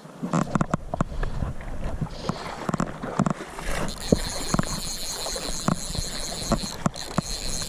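Wind buffeting an action-camera microphone over moving river water, with many short knocks and taps of handling. From about four seconds in there is also a steady high buzz.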